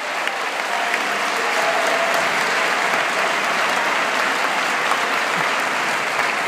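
Large crowd of schoolchildren applauding, many hands clapping steadily together at the end of a song.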